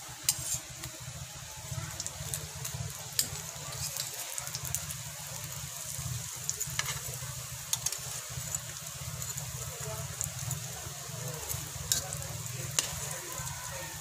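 Breaded sweet potato doughnuts sizzling in shallow oil in a steel wok. A metal spatula clinks against the pan several times as they are turned.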